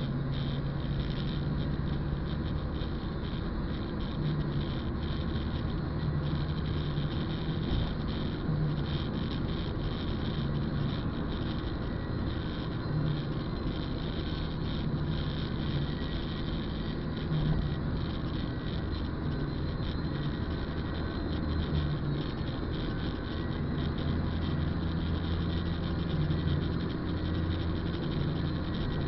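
Steady in-cabin noise of a car driving on a wet road: a low engine hum under a constant hiss of tyres.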